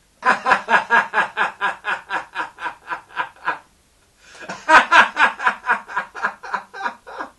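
A man laughing hard in two long fits of quick, even bursts, about six a second, with a short pause about three and a half seconds in.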